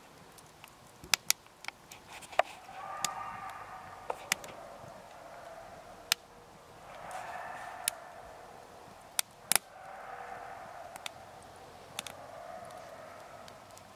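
Campfire crackling, with sharp pops scattered throughout. Three times, for a few seconds each, a wavering, pitched sound of unknown source rises over it.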